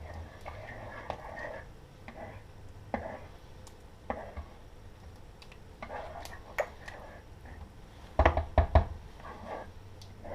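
A spoon stirring a thick tomato-and-cream curry sauce in a pot, with repeated scrapes against the pan and light clicks. About eight seconds in come a quick run of three or four loud knocks, the loudest sounds in the stretch.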